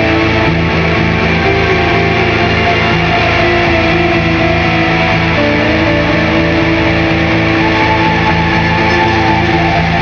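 Instrumental experimental music: a dense, steady drone of layered sustained tones, with pitches slowly sliding up and down over a constant low bed.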